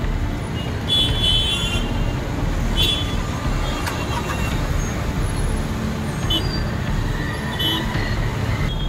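Busy road traffic in heavy rain: a steady rumble of vehicles with a few short horn toots.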